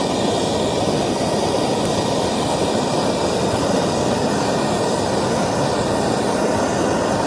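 Handheld gas torch burning with a steady hiss of flame, held close.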